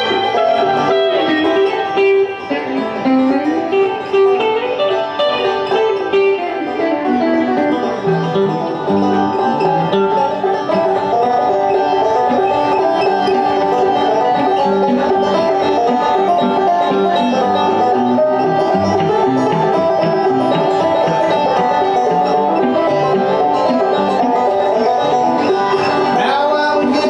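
Banjo and electric guitar playing bluegrass together.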